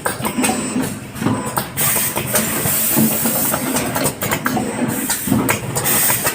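Automatic soldering machine running: steady machine noise with a low hum, repeated short clicks and hissing that swells and fades several times.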